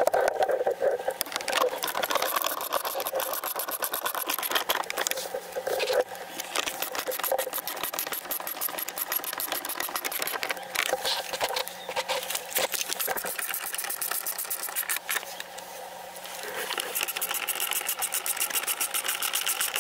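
Hand screwdriver driving the screws that hold a pickup truck's plastic door trim panel, with a fast, even run of small clicks from the tool and the screws.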